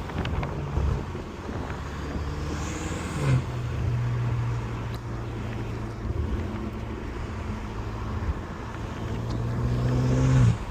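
BMW M5 Competition's tuned twin-turbo V8 running steadily. Its note dips slightly a little over three seconds in, then climbs and grows louder near the end before dropping off suddenly.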